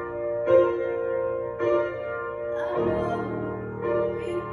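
Upright piano playing accompaniment chords, a new chord struck about once a second.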